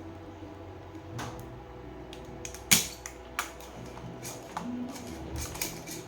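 Irregular clicks and taps of hard small objects being handled, with one sharp louder click a little under halfway, over a steady low electrical hum.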